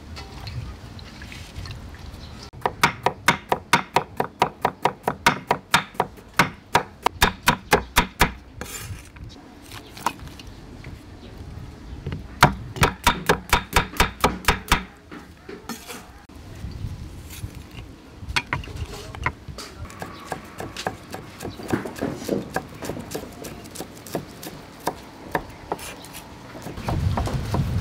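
Kitchen knife slicing cucumber on a wooden cutting board: quick, even chopping strokes about four a second in two long runs, then slower, scattered cuts.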